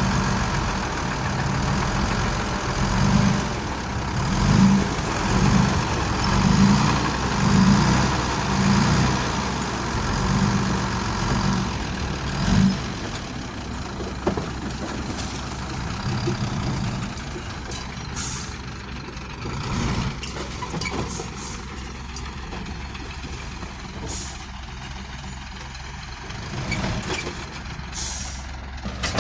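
Heavy diesel machinery running, its engine swelling and easing about once a second for the first dozen seconds, then running steadier and quieter. Several short hisses come in the second half.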